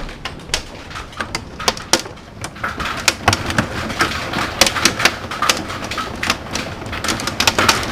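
Hailstones pelting the shop's outside door: a steady rush of storm noise broken by many irregular sharp hits, several a second.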